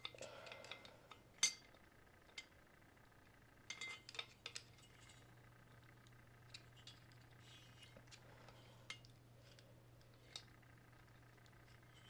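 Light metal clicks and clinks of a small screwdriver prying the lock-washer tabs on the upper bearing's retaining nut of a Federal Signal Model 2 siren rotor: one sharp click about a second and a half in, a cluster of clinks around four seconds, then scattered faint ticks.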